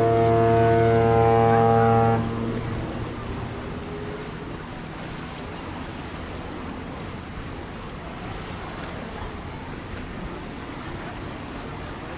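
Ship's horn sounding a long steady blast that cuts off about two seconds in and leaves a brief fading echo. A steady rushing background noise remains for the rest.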